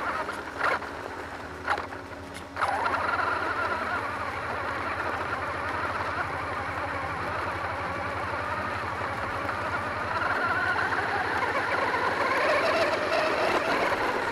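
Radio-controlled monster truck driving over dirt and gravel, picked up by its onboard camera. A few sharp knocks in the first couple of seconds, then a steady run of motor whine and tyre-on-gravel noise from about two and a half seconds in, rising in pitch near the end.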